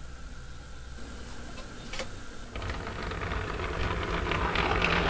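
Model railway car carrying a camera, rolling along the track with a rumbling noise full of small clicks. It starts about halfway in and grows steadily louder. Before that there is only a low hum.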